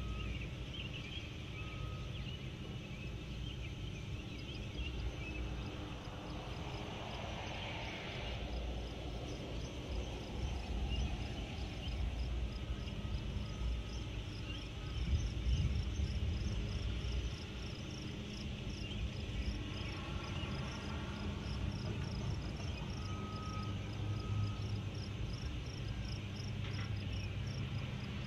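Low, steady rumble of a distant freight train receding down the line, with birds chirping and trilling over it and a falling whoosh about eight seconds in.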